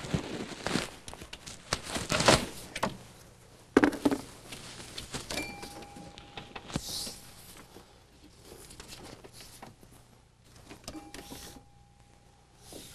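Hands working a rubber accessory drive belt off the engine's pulleys: irregular scrapes, rubs and clicks, with a faint thin steady tone twice.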